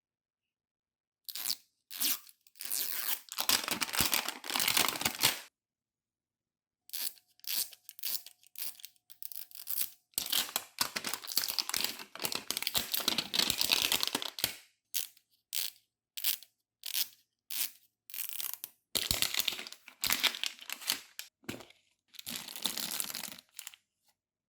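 Toy packaging being torn open and crinkled by hand, in a string of short and longer tearing bursts with fully silent gaps between them.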